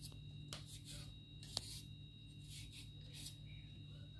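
Faint scraping and rustling of a kitchen knife peeling the skin off a piece of ginger, with one sharp click about one and a half seconds in, over a steady low hum.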